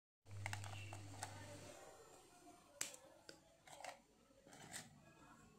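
Crisp fried masala nimki crackling and clicking as fingers pick through them in a glass bowl: a few sharp, separate crackles, under a faint low hum during the first second and a half.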